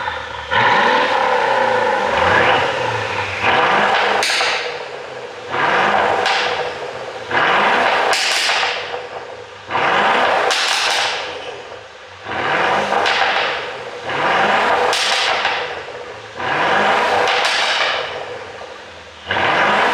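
Mercedes-Benz S500's twin-turbo V8 revved in repeated sharp throttle blips about every two seconds, each rev falling back with a string of exhaust pops and crackles on the overrun from a pop-and-crackle engine tune.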